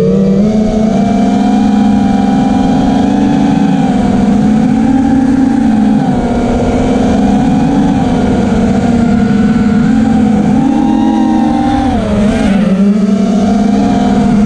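An FPV quadcopter's motors and propellers heard from the GoPro mounted on the drone: a loud, steady whine that rises and falls in pitch with the throttle, dipping and climbing sharply about twelve seconds in.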